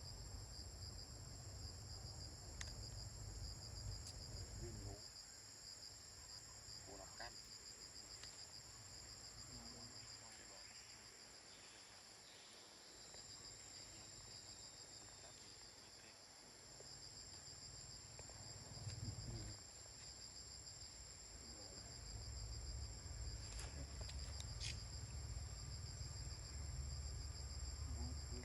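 Steady, high, pulsing chirring of insects, with a low rumble that fades out about five seconds in and comes back in the second half, and a few faint, short calls.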